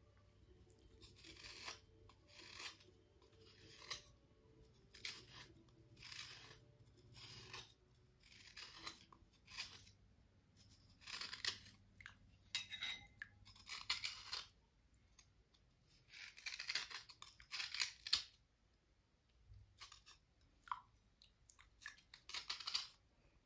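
Slate cubes being cleaned with a series of scratchy strokes, each about half a second to a second long. They come roughly once a second at first, then in closer runs.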